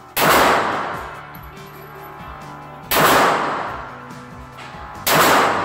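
Three slow, deliberate shots from a Springfield XD (HS2000) pistol, about two and a half seconds apart. Each shot echoes off the concrete walls of an indoor range. A faint steady background plays underneath.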